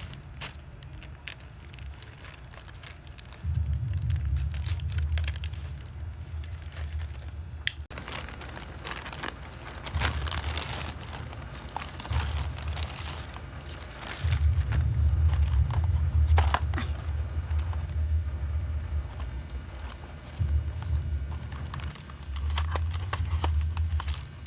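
Packaging being crinkled, handled and torn open during an unboxing, with scattered crackles and clicks over a low rumble that comes and goes.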